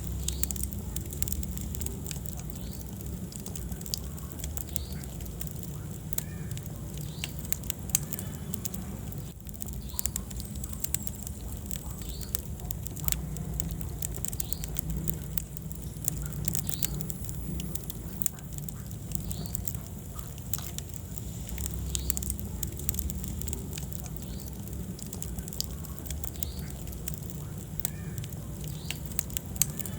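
Wood fire burning in a fireplace, with frequent irregular crackles and pops over a steady low rumble of the flames.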